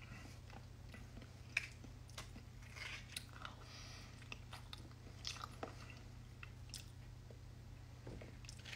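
Faint chewing and mouth sounds of a person eating soft avocado scooped from the skin with a spoon, with scattered small clicks, the sharpest about one and a half seconds in, over a low steady hum.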